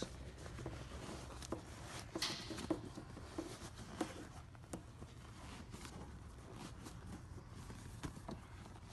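Faint handling noise of a vinyl seat cover being pushed and stretched over a foam headrest by hand: soft rustling with scattered small taps and clicks.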